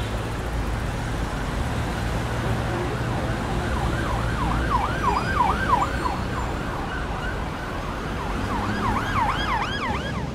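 Road traffic rumble with an emergency vehicle siren in a fast yelp, its pitch sweeping up and down about four times a second. The siren comes in about four seconds in for a couple of seconds, then again near the end.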